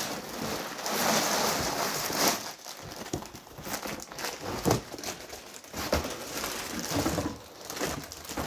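Packaging crinkling and rustling as a LEGO set's box is unboxed and its contents are handled. A dense rustle runs for the first two seconds or so, then gives way to shorter rustles and a few light knocks.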